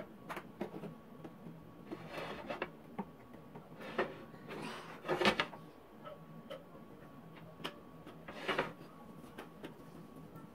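Scattered rubbing and rustling with light clicks from handling a thin pastry sheet on a flat nonstick griddle plate, the loudest bursts a few seconds apart, over a faint steady hum.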